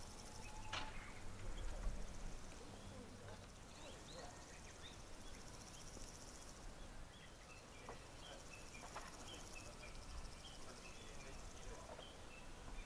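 Quiet outdoor ambience: a steady high-pitched chorus of insects, with scattered short bird chirps and a faint low rumble underneath.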